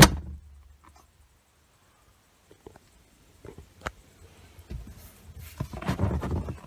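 Geely Atlas rear seatback latch snapping shut with one loud click. After a near-quiet stretch with a faint tick, the seat is rocked from about five seconds in, giving repeated low creaks of leather rubbing at the seat joint.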